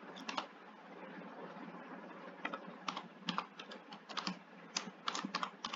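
Typing on a computer keyboard: a couple of keystrokes at the start, a pause of about two seconds, then a quicker, irregular run of keystrokes.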